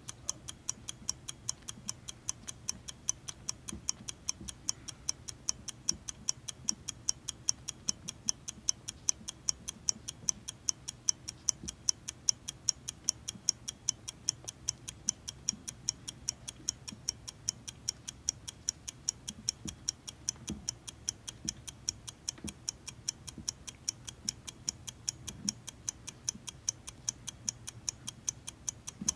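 Clock ticking sound effect: a steady, even tick-tock at about two ticks a second, counting off the seconds.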